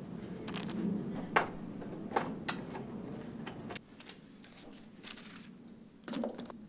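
A handful of sharp, scattered clicks and taps of metal on metal: a hex driver and corner brackets being handled on the screws of a projector-screen frame corner.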